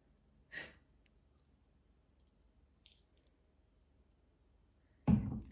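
Quiet kitchen room tone with a faint click or two, then a sudden thump about five seconds in as a plastic corn syrup bottle is set down on a stone countertop.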